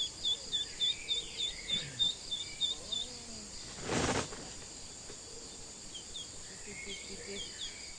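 Steady drone of forest insects, with a rapid series of short chirps, about four a second, over the first three seconds and again near the end. A short rustling burst comes about four seconds in.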